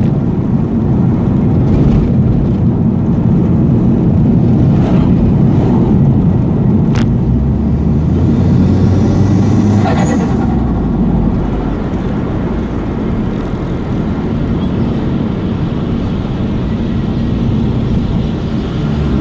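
Turbocharged Mitsubishi Airtrek engine running loudly. About halfway through there is a brief whistling sweep, after which the engine note settles lower and quieter.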